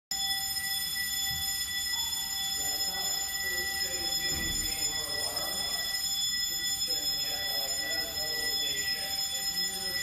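Building fire alarm sounding a continuous, steady high-pitched tone, with faint voices murmuring beneath it.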